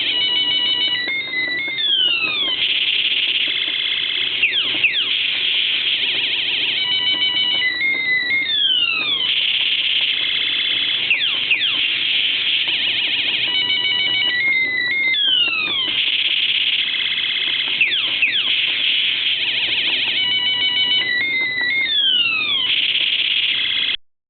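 Light-up toy spinning top's electronic sound chip playing a looping sci-fi 'UFO attack' effect: falling laser-zap sweeps, rapid beeps and buzzing, the sequence repeating about every six and a half seconds. It cuts off suddenly near the end.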